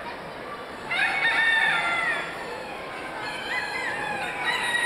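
Roosters crowing over a steady background din of a busy poultry show hall: one loud crow begins about a second in, a fainter crow follows around three seconds in, and another loud crow starts near the end.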